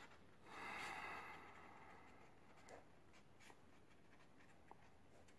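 Faint scratching of a pen writing on lined paper, loudest about a second in, then thinning to a few soft short strokes.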